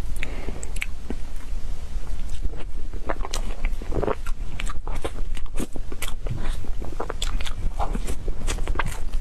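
Close-miked mouth sounds of someone eating cake: chewing with an irregular string of short clicks and smacks, several a second, over a steady low hum.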